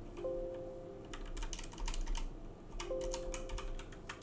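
Typing on a computer keyboard, keys clicking in quick irregular runs. Two held low tones, each about a second long, sound twice: just after the start and about three seconds in.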